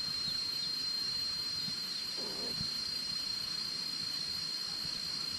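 Steady high-pitched insect chorus, a single whining tone that holds without a break.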